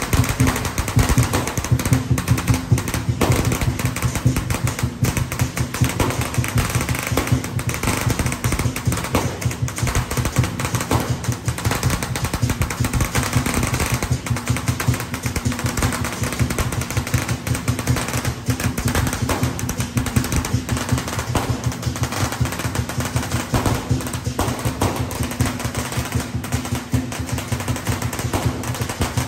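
A long string of firecrackers going off in a rapid, continuous crackle, with a steady low drone underneath.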